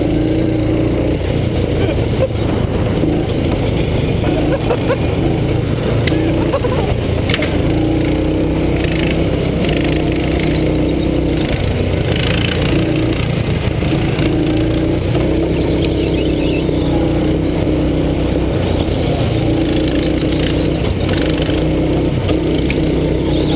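Go-kart's small engine running hard, heard onboard over a steady low rumble; its note dips and climbs every second or two as the kart slows and accelerates through the corners.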